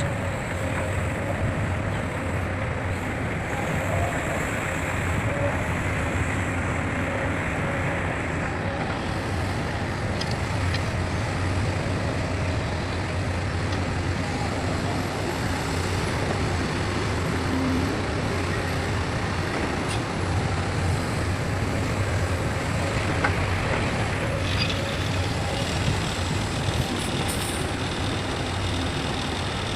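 Heavy diesel engines of an excavator and dump truck running steadily, with a constant low rumble.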